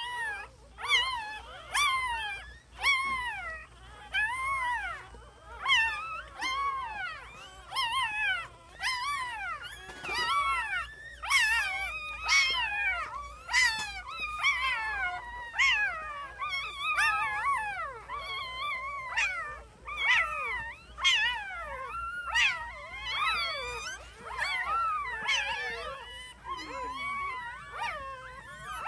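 A litter of newborn puppies crying: a continuous run of short, high, squeaky squeals that rise and fall, about one or two a second, with several pups calling over one another from about halfway on.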